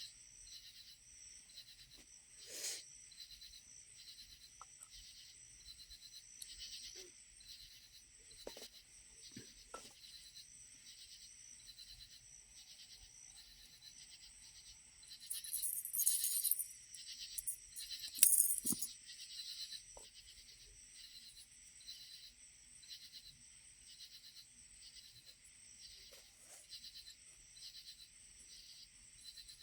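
Insects chirping in a steady, evenly pulsing chorus. A ferro rod is scraped twice with a sharp hiss, once for about a second around a third of the way in and again briefly soon after. A few faint clicks and taps are heard between.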